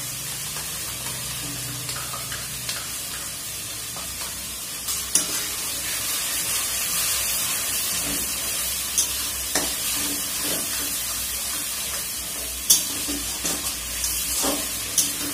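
Onion paste frying in oil in a metal wok, with tomato paste just added, sizzling steadily while a metal spatula stirs it. The spatula taps and scrapes against the pan now and then.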